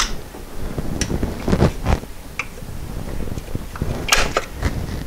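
Scattered light clicks, knocks and scrapes of a screwdriver and hands working at the distributor among the hoses and plug wires of an engine bay, with a cluster of louder knocks a little past a second in and again about four seconds in.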